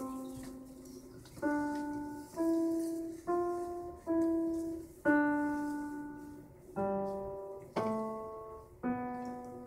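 Electronic keyboard with a piano voice playing a simple beginner melody one note at a time, about nine notes, each struck and left to fade before the next.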